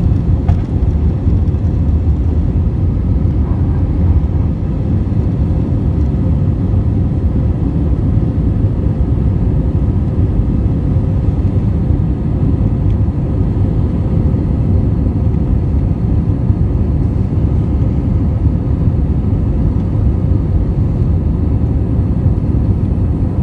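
Airbus A320-200 jet engines and airflow during takeoff, heard inside the passenger cabin as a steady, even rumble with a faint hum above it.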